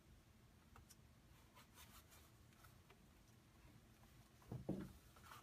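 Faint rubbing and light tapping of fingers pressing an adhesive faceplate skin down onto an Akai MPC Element pad controller, with a soft thump about four and a half seconds in.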